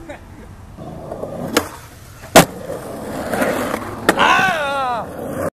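Skateboard wheels rolling on a concrete skatepark bowl, with sharp clacks of the board striking the concrete, the loudest about two and a half seconds in. Near the end a wavering tone falls in pitch, and then the sound cuts off suddenly.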